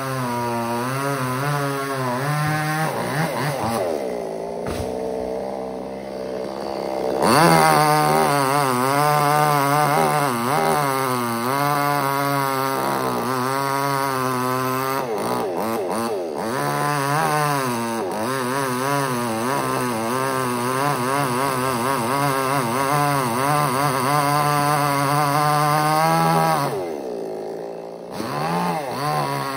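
Two-stroke chainsaw running hard, its pitch wavering as the chain works through wood. The revs fall away about four seconds in, then it revs up again sharply. Near the end it drops back once more before revving up.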